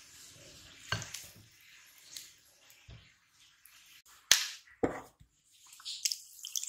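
Kitchen food-prep handling sounds: a few sharp clicks and taps, the loudest about four seconds in and another just after, with fainter handling noise between.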